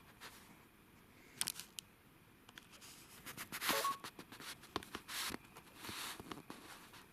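Faint handling noise: scattered light clicks and scrapes of a plastic VR headset being held and moved, with a few louder knocks about a second and a half in and again near the middle.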